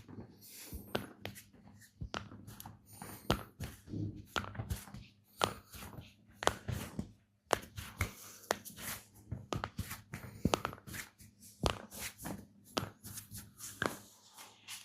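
Hands massaging a person's body: irregular slaps, taps and rubbing on skin, with a steady low electrical hum underneath.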